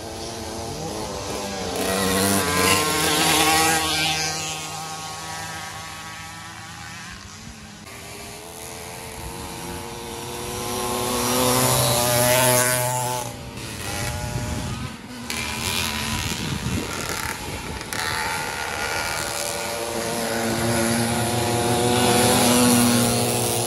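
Small two-stroke engines of racing motorized bicycles and mopeds, several at once, revving up and down as riders pass, getting louder and fading away; the loudest passes come about three, twelve and twenty-two seconds in.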